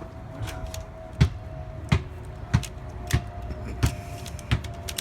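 Six sharp clicks, about one every two-thirds of a second, over a steady low rumble and a faint steady whine.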